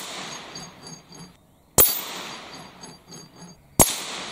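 Two rifle shots about two seconds apart from a moderated Steyr Zephyr II in 17 HMR. Each is a sharp crack with the clang of a small hanging steel plate being hit close behind it, ringing out while the plate rattles on its hanger as it swings. The ring of a hit just before is still fading at the start.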